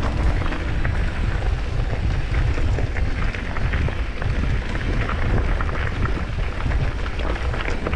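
Wind buffeting an action-camera microphone while riding an e-mountain bike, a steady rumble with scattered rattles and ticks from the tyres and bike on the track.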